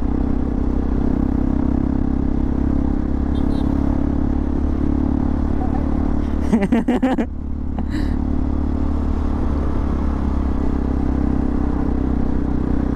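Hero XPulse 200 single-cylinder motorcycle engine running steadily at low road speed. About six and a half seconds in there is a short sound that bends in pitch.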